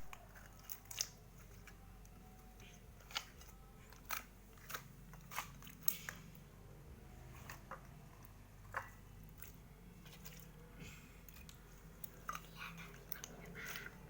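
Slime being squeezed and worked by hand, giving irregular sharp clicks and pops.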